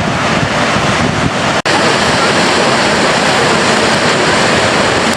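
Loud, steady rush of the glacier-fed Gullfoss waterfall, mixed with wind on the microphone; the sound cuts out for an instant about a second and a half in.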